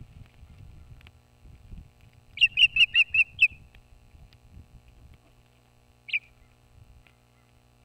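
Osprey calling: a quick run of about seven loud, high whistled chirps about two and a half seconds in, then one more single chirp near the end.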